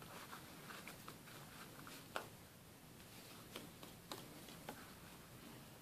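Faint scattered ticks and soft rustling of a crochet hook working through yarn during a decrease stitch, over low room hiss.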